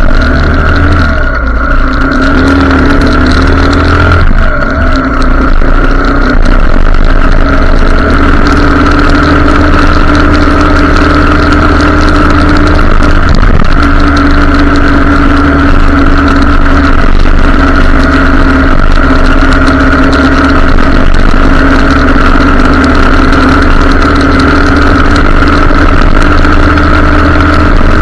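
Motorcycle engine running loud and steady while riding, its pitch shifting a little in the first few seconds and then holding at a constant cruise.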